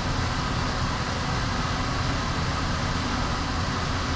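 Steady background hiss with a low hum, unchanged throughout, between spoken lines of a voice recording.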